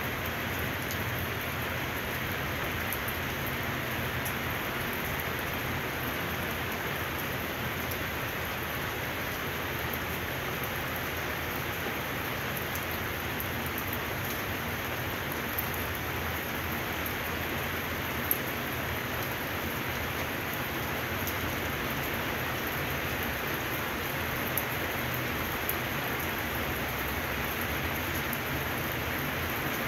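Steady rain falling and pattering on surfaces, with a few sharper drops standing out now and then.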